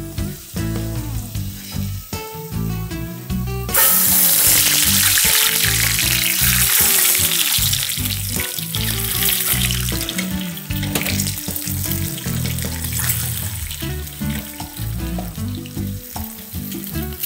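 Peeled hard-boiled eggs frying in hot oil in a pan: a loud sizzle starts suddenly about four seconds in and carries on, easing a little towards the end. Background music plays throughout.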